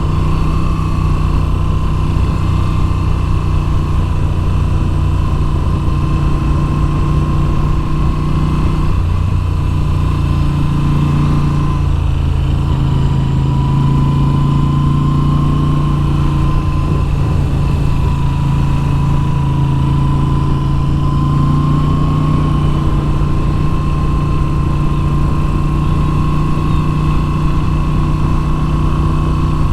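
Moto Guzzi V7's air-cooled V-twin engine running steadily while the motorcycle is ridden. Its note changes pitch twice, about a third of the way in and again a little later.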